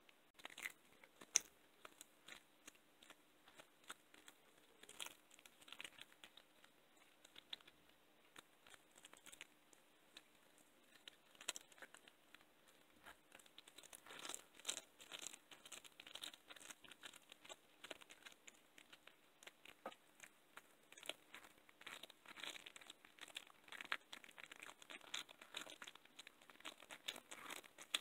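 A cat chewing and licking at a lamb's ear: faint, irregular crackles and small tearing sounds, getting busier about halfway through.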